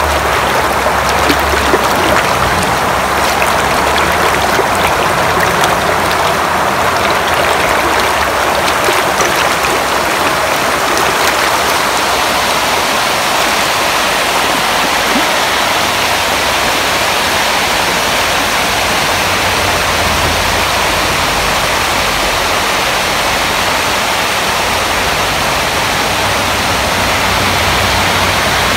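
Water rushing over a concrete dam spillway and churning into whitewater below: a loud, steady rush.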